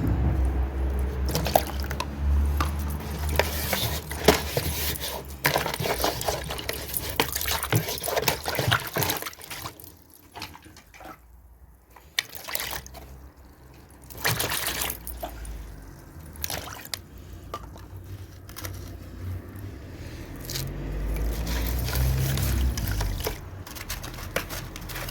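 Dry cement crumbled into water: irregular crunching crackles and splashes, thinning out for a few seconds midway, with a low rumble at the start and again near the end.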